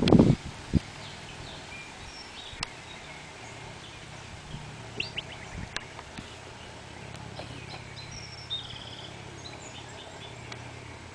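Small birds chirping, with scattered short high calls and a quick trill, over a faint steady low hum. A brief rustle of camera handling and a click come at the very start.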